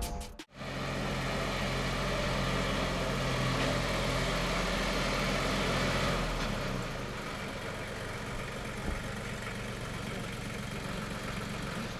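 A steady low engine hum under a broad rushing noise, easing somewhat about six seconds in.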